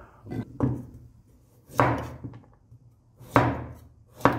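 Kitchen knife chopping vegetables on a wooden cutting board: about five separate strokes, each a sharp knock of the blade on the wood, spaced irregularly about a second apart.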